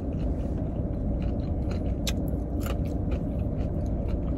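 Close-up chewing of crunchy fried chicken, with a few sharp crunches, over the steady low hum of a parked car left running with the air conditioning on.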